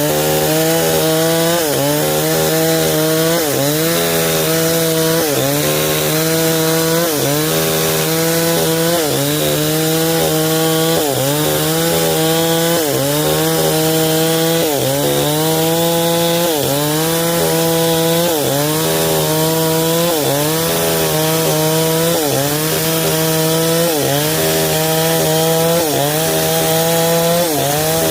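Stihl 070 two-stroke chainsaw ripping timber lengthwise under load, its engine note dipping and recovering about once every second and a half.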